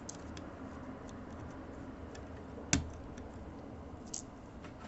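Light clicks and taps of small parts being handled inside an opened netbook, with one sharp click a little under three seconds in and a smaller one about four seconds in.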